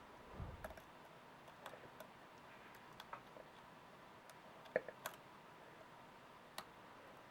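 Faint, scattered metallic ticks and clicks of a lock pick and tension tool working the pins of a small format interchangeable core (SFIC) lock, the loudest pair about five seconds in. A short low bump of handling just after the start.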